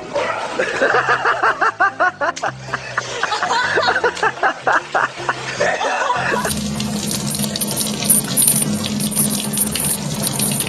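A rapid string of short vocal bursts for about six seconds, then water running hard from a tap into a sink or tub, a steady rush to the end.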